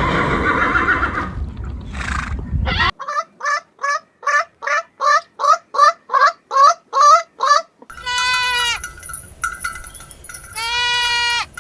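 Farm animal calls: the end of a horse whinny, then a quick run of about fourteen short, pitched calls at roughly three a second, then two long, steady bleats like a goat's, about two seconds apart.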